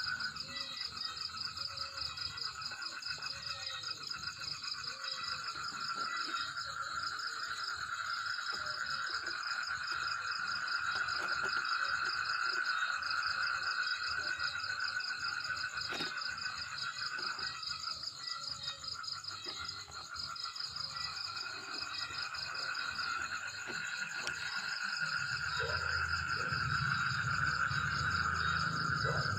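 A steady outdoor chorus of insects and frogs: several continuous trills at different pitches sounding together. A low rumble comes in near the end.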